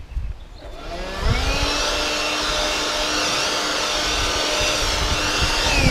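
Chainsaw of a chainsaw mill revved up to full throttle about a second in, held at a steady high pitch, then released near the end so the engine speed falls away.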